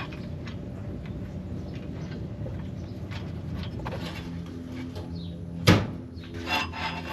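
Exhaust pipe parts being handled and fitted: light clicks over a steady low hum, then one sharp, loud knock a little before the end, followed by a couple of lighter clunks.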